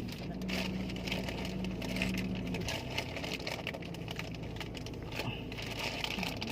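Steady low hum of a moving vehicle, with scattered small clicks and rattles.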